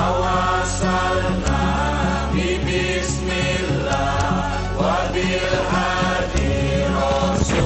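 Music with chanting voices singing together over a steady low sustained bass.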